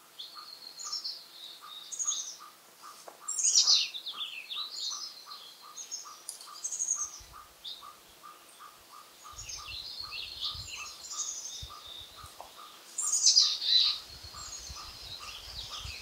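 Several songbirds singing in overlapping chirpy phrases, loudest about three seconds in and again near the end. Under them runs a steady series of short, evenly spaced mid-pitched notes, about three a second. Some irregular low rumbles come in the second half.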